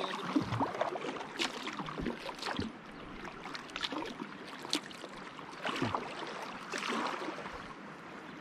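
Kayak paddle strokes splashing in moving river water, an irregular stroke about once a second over the steady wash of the current.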